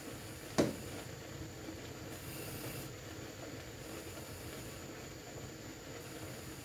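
Steady low hiss of a lit gas hob burner, with a single sharp knock about half a second in.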